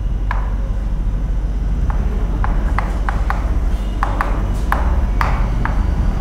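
About a dozen irregular sharp taps, each with a brief ring, from writing on a classroom board, over a steady low room hum.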